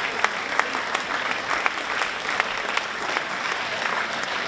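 Audience applauding steadily in a hall, with a few louder individual claps standing out.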